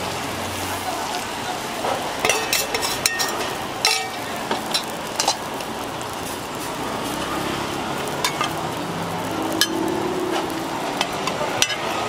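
Roti frying in oil on a flat griddle with a steady sizzle. Sharp metal clicks of a steel spatula against the pan come in a cluster two to five seconds in, and again near the end.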